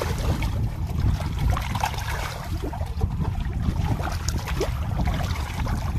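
Hands scooping and churning thick muddy water, with wet sloshing and splashing, over a steady low rumble.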